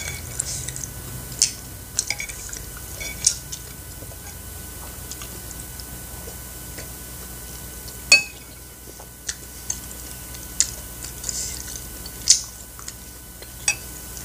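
Metal spoon clinking and scraping against a ceramic plate while scooping rice cakes in thick sauce, in scattered sharp clicks, the loudest about eight seconds in. Quiet chewing sounds fall between them.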